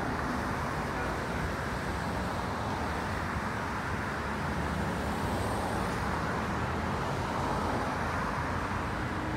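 Steady road traffic noise: cars passing on a busy street, a continuous rush of tyres and engines.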